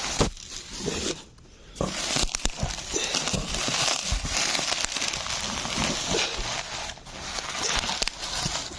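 Packaging being torn open and crinkled by hand: a busy rustling with many small cracks and crackles, broken by a short quiet gap about a second in.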